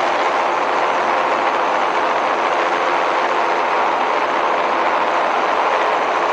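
Ultralight trike's engine and pusher propeller running steadily at cruise, mixed with rushing airflow over the airframe, a loud even drone with no change in pitch.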